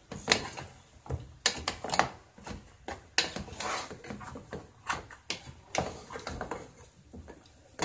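A wooden spatula scraping and knocking in a pot as neck bones are stirred and turned, in irregular strokes every half-second or so.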